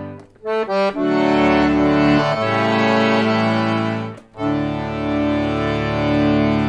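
Solo accordion playing a Newfoundland folk tune: a held chord breaks off at the start, a few quick short notes lead in, then held chords under the melody, with a brief break about four seconds in before the chords resume.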